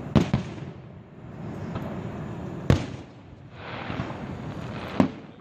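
Aerial fireworks bursting: three sharp bangs about two and a half seconds apart, with a hiss of crackle and rumble between them.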